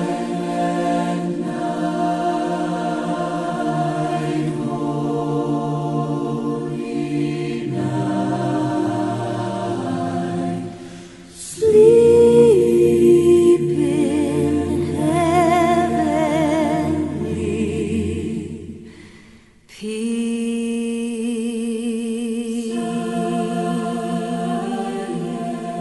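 Unaccompanied choir singing slow, sustained chords. About twelve seconds in, a louder passage begins with voices singing with vibrato. It fades almost away shortly before twenty seconds, and the choir comes back in.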